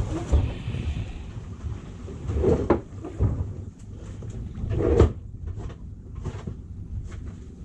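Handling noise: a few dull knocks and thumps, the loudest about five seconds in, over a low rumble of wind on the microphone, as a caught grouper and its madai lure are handled.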